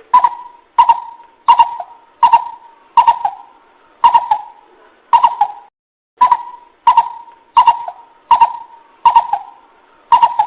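Coucal lure call: a steady run of hollow hoots, about one and a half a second, each starting with a sharp click, with a brief break about halfway through.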